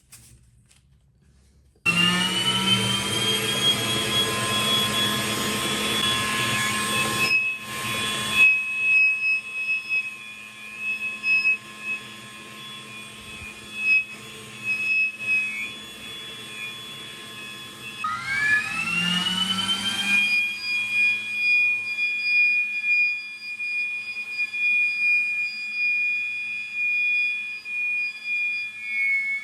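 Electric motor of a homemade PVC vacuum cleaner starting up about two seconds in, its whine rising in pitch and settling into a steady high whine. About two-thirds of the way through it starts up again with a second rising whine and runs steadily.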